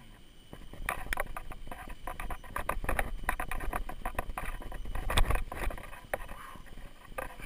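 Mountain unicycle rolling over a dirt trail, heard from a camera on the rider: an irregular run of crunching clicks and knocks from the tyre on grit and leaves, over a low rumble, loudest about five seconds in.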